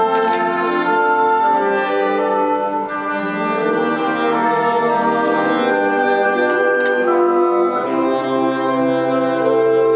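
Symphonic wind band playing slow, held brass chords that change every second or so, with percussion strikes at the very start and twice in quick succession about two-thirds of the way through.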